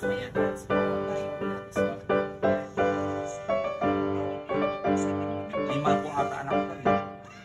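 Background piano music: notes struck one after another and dying away, over held chords, thinning out near the end.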